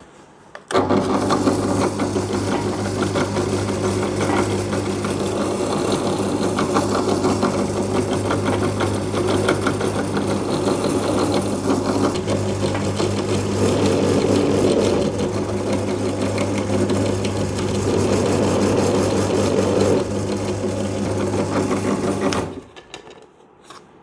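Drill press motor starting up about a second in and running steadily with a hum while holes are drilled, then switched off near the end.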